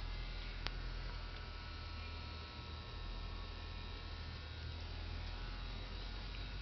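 Steady machinery hum of a water treatment plant room: a low hum with faint, thin whining tones over it, and a single faint click just under a second in.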